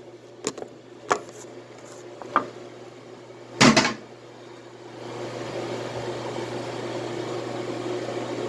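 A few short knocks and clatters, the loudest just before four seconds in, over a constant low hum. About five seconds in, a small electric motor starts a steady whir.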